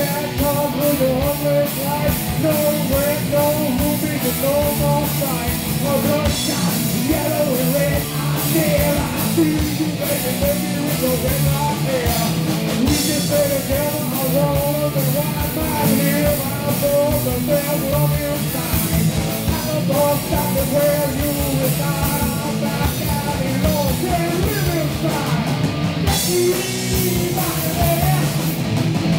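Live rock band playing: electric guitars, bass and drum kit, with a man singing into a microphone.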